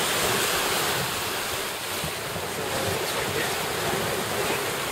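Steady wind noise on the microphone over the rush of water past a sailing yacht under way.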